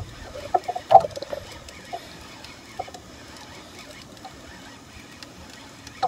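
Spinning reel cranked against a hooked fish: short squeaks and ticks, busiest in the first second and a half and then only now and then, over faint background noise.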